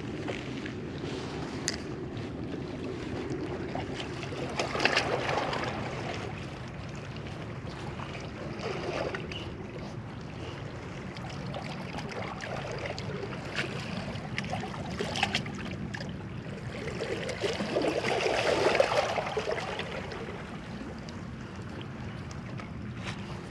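Spinning reel being cranked slowly, retrieving a bottom rig, with a steady low whir. Wind and water noise swell and fade a few times, and there are a few light clicks.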